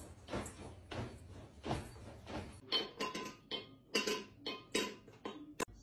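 A dog eating at its floor bowl, a rhythmic series of sounds about two a second, then a run of sharper clinks and taps from a cat's metal food bowl.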